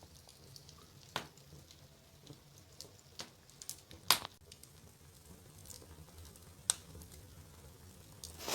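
Wood fire in a fireplace crackling, with scattered sharp pops at irregular intervals, the loudest about four seconds in.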